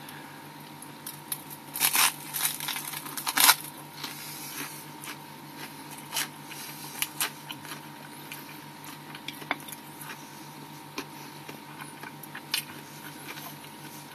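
Someone biting into and chewing a baked pizza sub roll, with bursts of crackly crunching about two and three and a half seconds in and scattered smaller clicks after, over a steady low hum.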